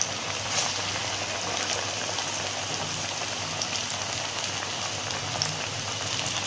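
Paruppu vadai (split-pea dal fritters) deep-frying in hot oil in a kadai: a steady sizzle with scattered small pops.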